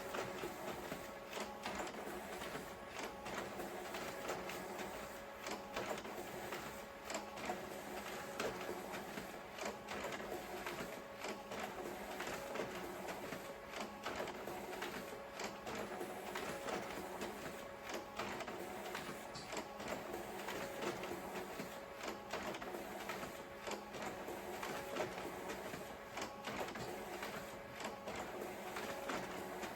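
Photocopier running continuously: a steady mechanical whir with a constant hum and a quick, irregular clicking and clattering of paper feeding through.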